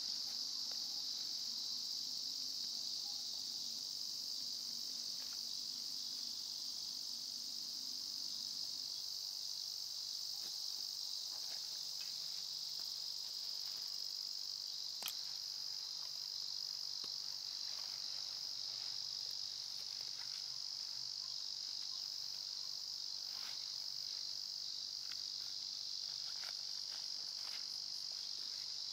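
Steady high-pitched drone of a summer insect chorus. Under it come faint clicks and rustles of a backpack's straps and carabiners being handled, with one sharper click about halfway through.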